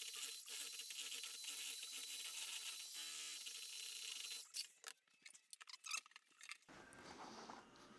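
Popcorn ceiling texture mix being poured or stirred in a bucket, a steady hissing scrape. After about four and a half seconds it breaks into scattered clicks and knocks.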